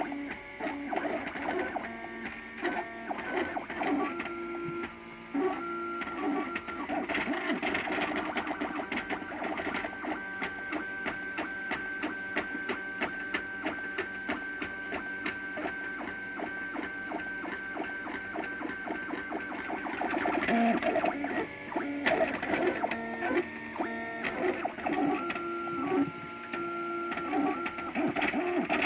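MakerBot Thing-O-Matic 3D printer's stepper motors whining in shifting tones as the print head moves while it lays down plastic. The pitches hop and change every fraction of a second, settle into a steadier pattern for about ten seconds in the middle, then go back to quick changes near the end.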